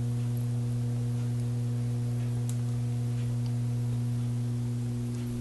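Steady low electrical hum from the aquarium's running equipment, a buzzy mains-pitched tone with overtones, easing slightly near the end.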